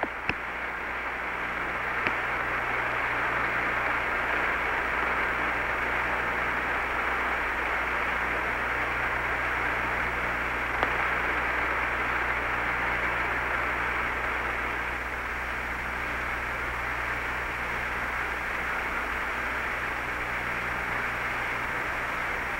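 Steady hiss of an open Apollo 11 air-to-ground radio channel, with a low hum underneath and a few faint clicks.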